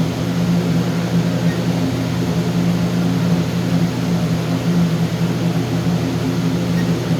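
Steady low machine hum with several level tones, unchanging throughout.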